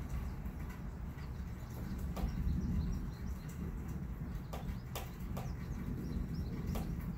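Outdoor storm ambience: a steady low rumble that swells a couple of seconds in, with faint bird chirps and a few sharp ticks.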